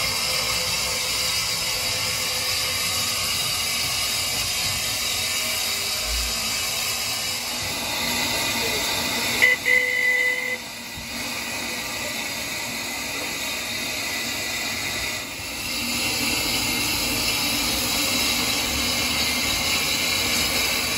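Small steam tank locomotive standing with steam hissing steadily. About ten seconds in there is a brief loud high-pitched sound, and the hiss is weaker for a few seconds before it comes back.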